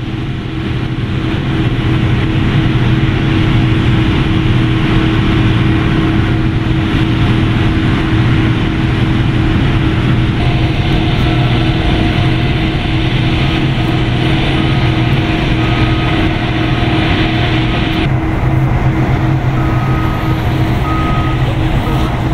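Steady loud whine and rumble of airliner ramp machinery at a parked Boeing 787-8, with a constant low hum; the hissing part drops off sharply a few seconds before the end. From about halfway, a service vehicle's short beeps repeat about once a second.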